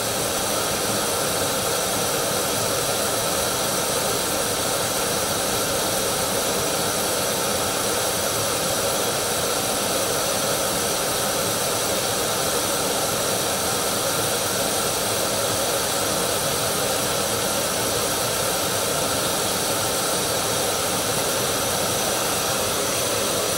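Gas camp stove burner running steadily at full flame, heating a mess tin of water that is coming up to a boil.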